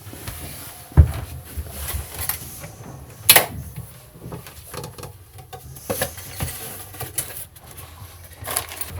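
Scattered knocks and clicks of cabin cupboard doors, lids and drawers being handled, with a sharp thump about a second in and another a little past three seconds.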